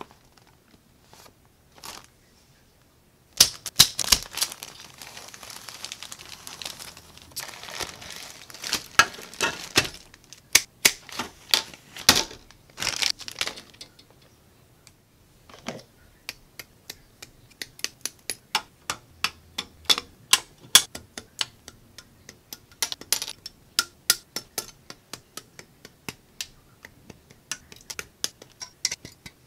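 Plastic model-kit parts and packaging handled: crinkling bags and clicking plastic sprues for the first half. From about halfway a long run of sharp clicks, a couple a second, as side cutters snip parts from the plastic sprues.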